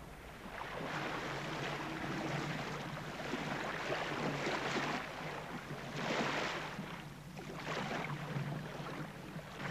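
Outdoor wind and sea noise at sea, a rushing hiss that swells and fades in several surges, over a steady low hum.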